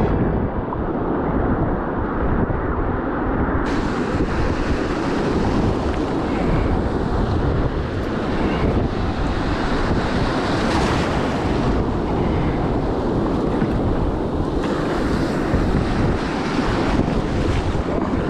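Wind buffeting the microphone over breaking surf and rushing water, as a kayak heads out through the waves.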